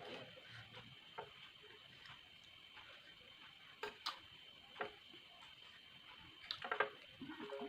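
Eating sounds: a utensil clicking lightly against a bowl of instant noodles. A few sharper clicks come about four to five seconds in, and a quick cluster of clinks near the end.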